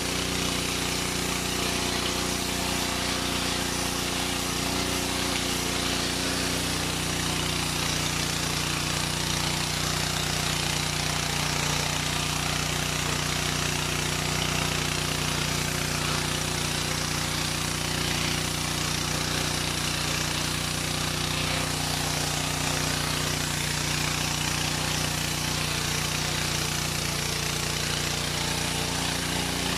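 Ferrex petrol pressure washer's engine running steadily, with the hiss of the high-pressure water jet on paving.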